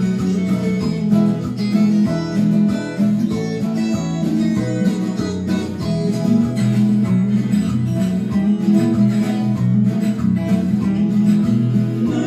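Viola caipira, the ten-string Brazilian folk guitar, plucking a quick instrumental break of a country-style song, with no singing.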